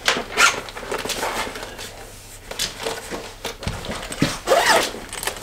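Clothes and fabric rustling as they are handled and sorted, with a zip, and a few footsteps on a wooden floor.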